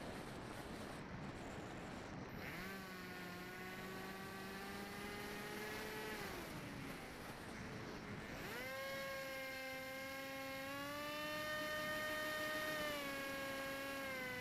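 AXN foam RC plane's electric motor and propeller whining, heard from aboard the plane: wind rush at first, then the whine rising in pitch as the throttle comes up about two and a half seconds in, dropping away around six seconds, and rising again sharply about eight and a half seconds in, its pitch stepping up and down with the throttle.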